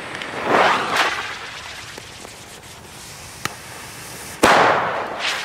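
A small category F2 firecracker goes off with a sharp bang about four and a half seconds in, its noise trailing away over most of a second. Earlier, about half a second in, a swelling whoosh rises and fades and ends in a click.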